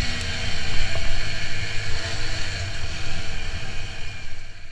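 TVS Apache RTR 160 4V's single-cylinder engine running while the motorcycle is ridden, with wind rushing over the microphone. The sound drops off near the end.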